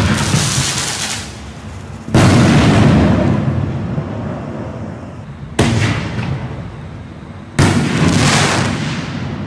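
Consumer 5-inch artillery shells fired from a mortar tube: four sudden loud booms in two pairs, a launch thump followed about two seconds later by the shell bursting overhead. Each boom trails off in a fading rumble and hiss.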